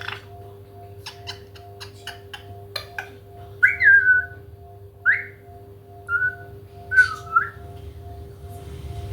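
African grey parrot whistling: four short whistles, the first falling in pitch and the second rising, after a run of sharp clicks in the first three seconds. A faint steady hum runs underneath.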